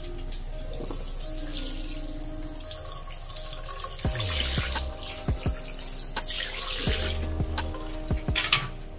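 Water from a mixer tap's shower spray running into a ceramic washbasin and down the drain as the basin is rinsed, the splashing louder at times, over background music.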